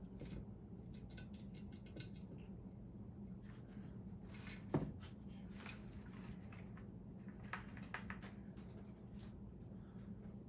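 A rabbit gnawing a wooden chew toy: faint, scattered crunching clicks, with one sharper knock about five seconds in, over a steady low room hum.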